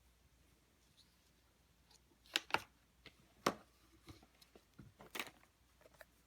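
Hands handling an Apple Watch Sport's box and packaging: a couple of sharp clicks or taps about two and a half seconds in, another a second later, then a short rustle and a few light ticks.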